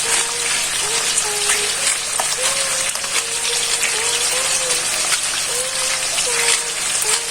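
Food frying in a pan: a dense, steady sizzle full of small crackles. A soft background melody runs under it.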